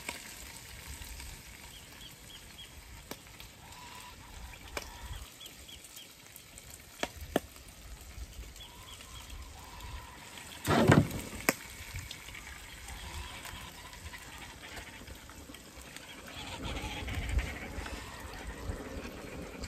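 Bacon sizzling in a frying pan, with metal tongs clicking against the pan now and then. A brief louder noise comes about eleven seconds in.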